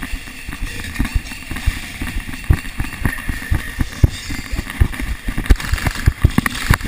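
Running footfalls on a concrete floor, jolting a body-worn camera: quick, uneven thumps several times a second over the rustle of clothing and gear.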